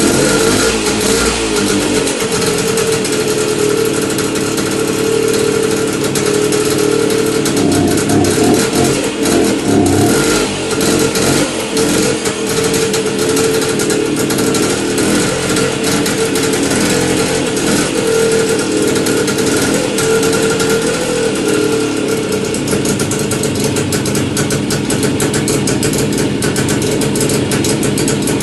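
Engine running steadily on its first start after a gearbox rebuild, its note wavering briefly about a third of the way in.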